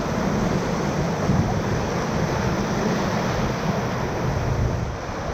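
Steady rushing of river whitewater around a raft, an even noise with no breaks.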